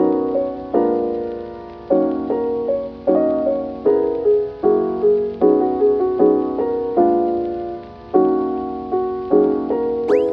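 Background music: a soft piano tune of chords and single notes at an easy, steady pace.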